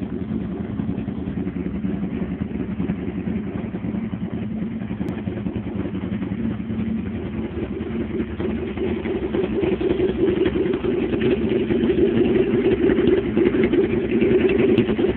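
Aprilia RSV1000's 60-degree V-twin running steadily through straight pipes, with no mufflers. It does not rev, and it grows somewhat louder about halfway through.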